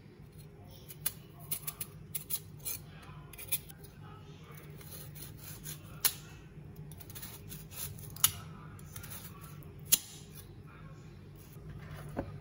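Kitchen knife peeling and cutting raw sweet potatoes by hand: irregular sharp clicks and snaps as the blade cuts through the firm flesh, with a few louder single snaps in the second half. A steady low hum lies underneath.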